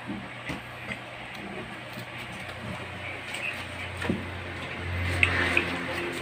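A few light clicks and taps of eating at a table, over a steady room background, with a low hum that swells briefly near the end.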